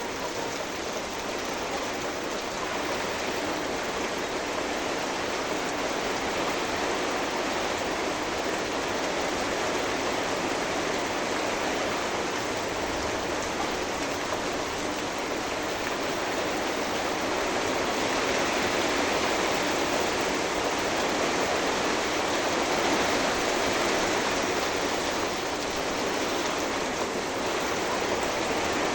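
Steady rain falling hard, a continuous even hiss of water that swells a little in the second half.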